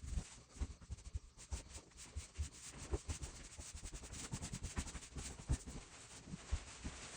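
Rubbing and scuffing of wood stain being worked into a bare hardwood floor with a roller, with irregular soft low thumps.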